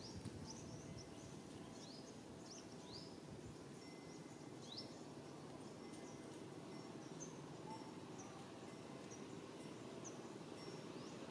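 Faint outdoor ambience with small birds chirping: quick, high sweeping chirps, thicker in the first few seconds, then scattered short high notes over a steady low background hum.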